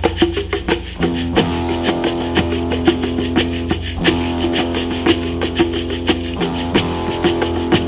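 Meditative instrumental music: a plucked string instrument and a shaker rhythm over a steady low drone.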